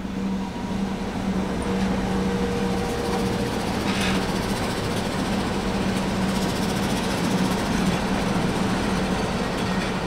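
Pacific National NR class diesel-electric locomotives running as they come up and pass at the head of a freight train: a steady engine drone over rail noise, with a brief sharper high sound about four seconds in.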